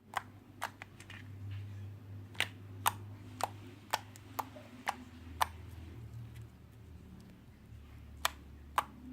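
Freshly activated clear-glue slime being worked in its container, giving irregular sharp clicks and taps about once or twice a second over a low steady hum.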